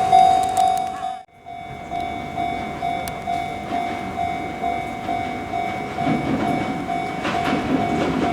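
Railway warning bell ringing a steady single-pitched ding about twice a second, cut off briefly about a second in. A train's running rumble grows over the last couple of seconds.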